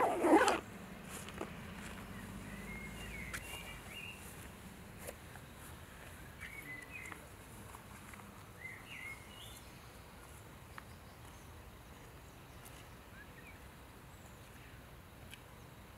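Quiet outdoor background with a few faint, short bird chirps scattered through it, after a brief loud sound right at the start.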